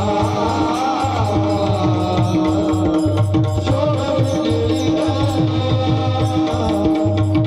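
Devotional bhajan music: a mridang drum played in a steady, driving rhythm under a held drone and a wavering sung melody.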